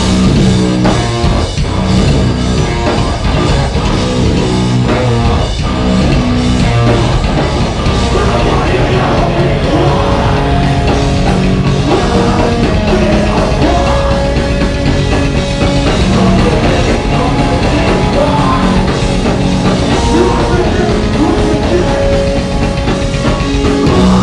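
A live heavy metal band playing loud, dense full-band music with drums, keeping up without a break.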